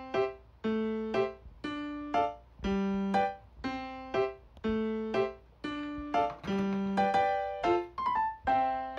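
Background music on a piano-like keyboard: a simple melody of short notes and chords at a steady beat.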